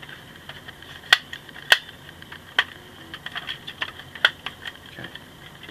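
Plastic parts of a vintage Kenner MASK Bulldog toy truck clicking and tapping as they are handled and fitted together by hand. Four sharper clicks stand out among softer taps.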